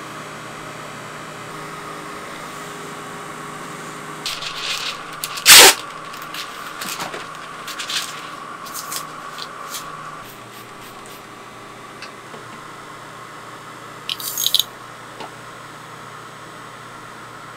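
Steady hum of a running cotton candy machine's motor. Over the hum come handling noises, paper rustling and clattering, with one sharp knock, the loudest sound, about five seconds in, and a short clatter about fourteen seconds in.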